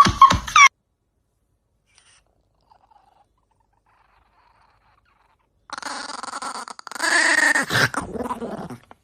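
An animal vocalising in a rough, growl-like sound over the last three seconds, loudest a second or two before it stops, its pitch falling near the end. Before it there are several seconds of near silence, after a loud sound cuts off in the first second.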